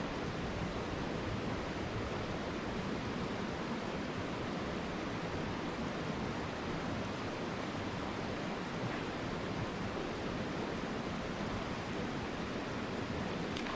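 A mountain stream flowing: a steady, even noise of running water.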